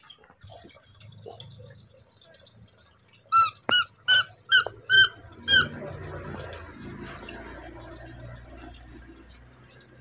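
Infant macaque giving six short, high squeaky calls in quick succession a few seconds in.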